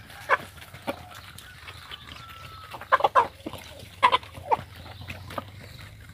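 Chickens clucking while they feed on scattered grain: short scattered calls, busiest from about three to four and a half seconds in.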